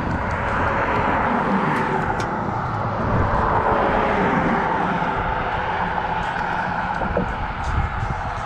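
Car traffic passing on the bridge roadway: a continuous rush of tyre and engine noise that swells about a second in and again in the middle, then eases, with a few faint handling clicks.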